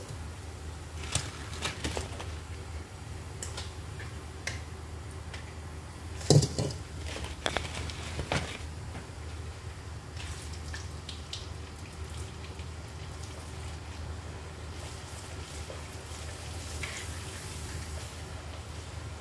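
Cassava crackers deep-frying in hot oil in a wok, the oil bubbling and sizzling steadily. A few sharp knocks and scrapes of a metal spider strainer and utensil against the wok, the loudest about six seconds in.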